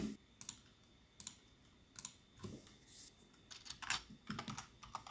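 Faint computer keyboard typing and clicks: a few scattered single clicks, then a quick run of key presses about three and a half seconds in as a short word is typed.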